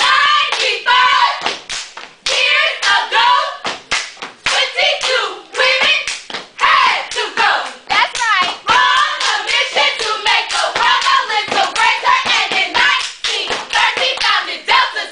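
Step routine: several women stomping on a hard floor and clapping and slapping their bodies in fast rhythm, with voices chanting along between the strikes.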